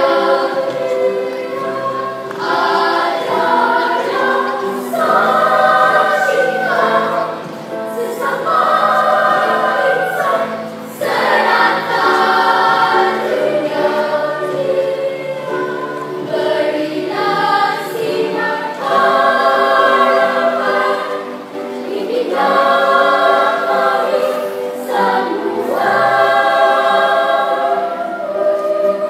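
A primary-school children's choir singing, in sustained phrases with short breaks for breath between them.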